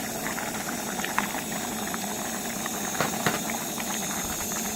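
Pot of water with diced vegetables boiling on a camp stove: a steady bubbling hiss, with a few faint clicks about a second in and again around three seconds in.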